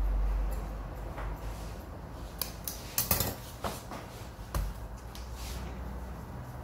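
A handful of sharp metallic clinks and clicks of barber's tools being handled and set down on a hard counter, the loudest about three seconds in.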